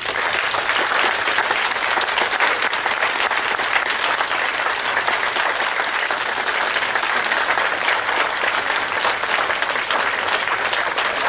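Audience applauding steadily, with many people clapping at once, starting suddenly and holding at an even level.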